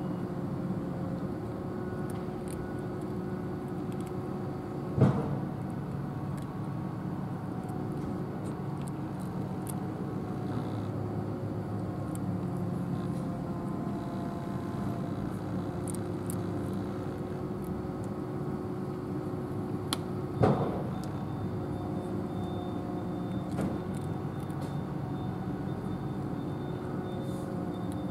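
Steady engine drone with several held low tones, as of a running motor vehicle, with two sharp knocks about five and twenty seconds in. Faint crunching of a cat chewing dry kibble is scattered through it.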